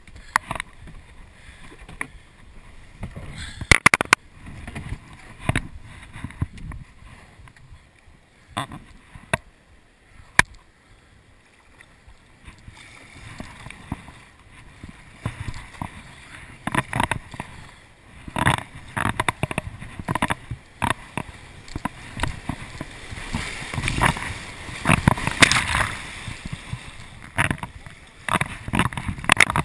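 Kayak paddle strokes splashing and knocking against a whitewater kayak, with sharp knocks in the first part. The splashing and rushing water grow denser and louder in the second half as the kayak runs into rapids.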